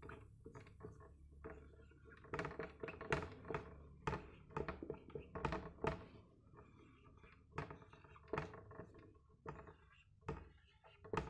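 Faint, irregular taps and short strokes of a marker pen against a whiteboard as symbols are written by hand.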